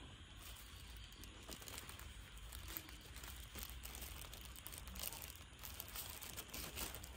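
Thin plastic bag crinkling faintly as hands turn and squeeze it: a steady run of small crackles.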